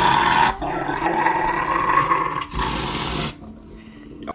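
Rottweiler growling in long, drawn-out vocal protests with its mouth open while its paw is held for a nail trim. The sound comes in three long stretches, breaking briefly about half a second and two and a half seconds in, and dies away after about three seconds.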